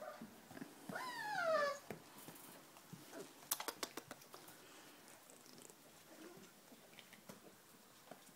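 Four-week-old Giant Schnauzer puppies at play. About a second in, one puppy gives a single drawn-out whine that falls in pitch. A quick run of clicks comes a couple of seconds later, with faint scuffling throughout.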